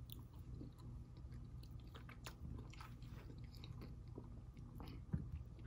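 Faint close-up chewing of a mouthful of fried potatoes and onions, with small wet mouth clicks and smacks.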